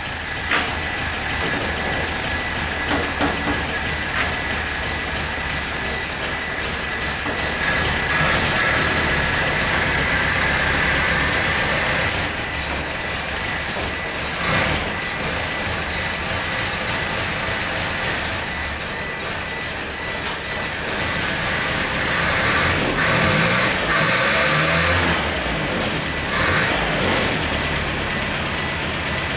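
Land Rover's rebuilt four-cylinder petrol engine, bored out to 2.5 litres, running steadily, with the revs rising and falling a few times.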